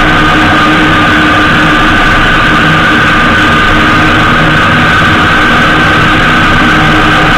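Honda GL1800 Gold Wing's flat-six engine and road noise at a steady cruise, a loud, constant drone with a few steady tones.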